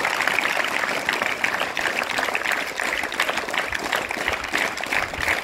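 Teachers and schoolchildren applauding, many hands clapping quickly and unevenly.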